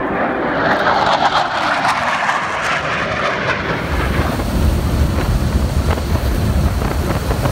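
A Blue Angels F/A-18 Hornet jet passing low overhead, its engine noise swelling loud and then fading. About four seconds in this gives way to a steady low rumble of wind and aircraft noise inside a jump plane with its door open.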